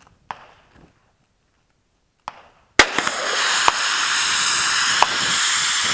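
Rifle shots: two sharp cracks, then a louder one a little before the halfway mark that hits a fire extinguisher. It bursts and keeps up a loud, steady hiss of escaping extinguisher powder and gas.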